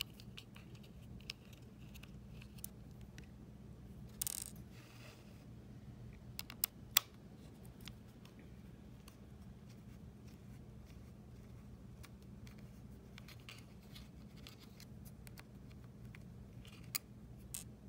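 Small screws being backed out with a small slotted screwdriver during a teardown of an Apple TV 3rd generation: faint scrapes and a few sharp metallic clicks, heard about four seconds in, around six to seven seconds, and near the end. A steady low hum runs underneath.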